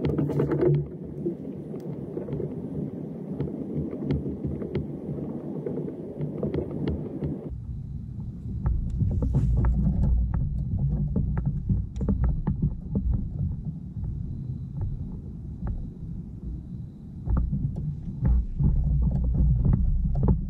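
Water sloshing and knocking low against a plastic fishing kayak's hull, with scattered light clicks and knocks throughout. About seven and a half seconds in, the sound changes abruptly and turns deeper and louder.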